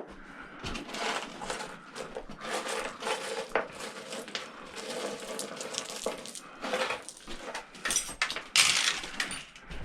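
Steel hammers and other metal hand tools clinking and clattering as they are picked up and set down, in a run of irregular knocks, with a louder rattle near the end.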